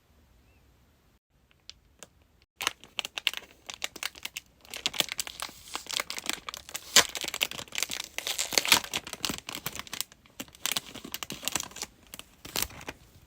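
Packaging crinkling and tearing as a merchandise pack is opened by hand, in dense crackling bursts that start a couple of seconds in and thin out near the end.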